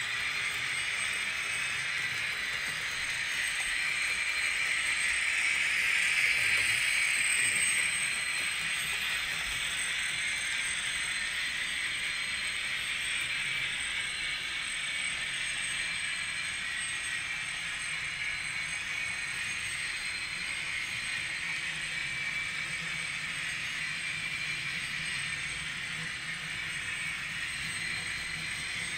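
N gauge model railway in operation: a steady mechanical whir with light rattling from the small motors and running gear, a little louder about six to eight seconds in.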